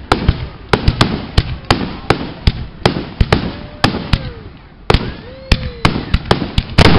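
Aerial fireworks display: shells bursting in quick succession, about three sharp bangs a second. A few faint whistles bend up and then down in pitch between them.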